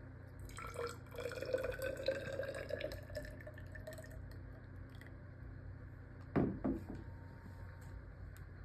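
Water trickling from a glass measuring cup into a plastic graduated cylinder for about three seconds, its pitch rising slowly as the cylinder fills. A little past six seconds in come two sharp knocks, the glass cup being set down on the wooden table.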